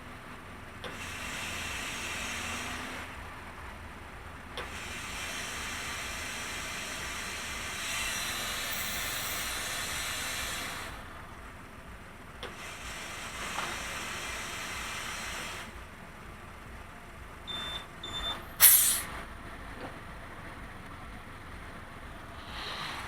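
Ford Puma on the move, with a steady low rumble of road and tyre noise. It swells three times into a loud hiss lasting a few seconds each, then a short, sharp burst of noise comes near the end.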